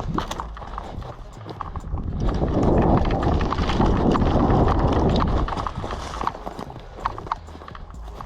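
Footsteps and the clatter of gear as an airsoft player moves, giving irregular sharp clicks and knocks, with a louder rushing noise from about two and a half to five and a half seconds in.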